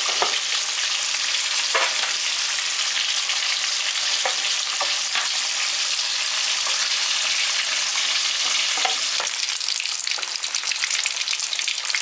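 Milkfish (bangus) belly pieces frying in hot oil: a steady sizzle, with a few short knocks as boiled eggplants are lifted out of the pot with tongs.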